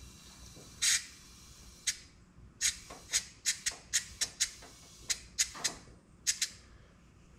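Compressed air let into a rear air spring in about a dozen short, sharp hisses, some in quick succession, as the air suspension is pumped back up from full bump.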